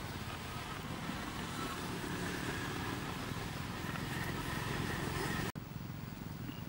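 Steady outdoor background noise, a low rumble with hiss, which cuts off abruptly about five and a half seconds in and comes back a little quieter.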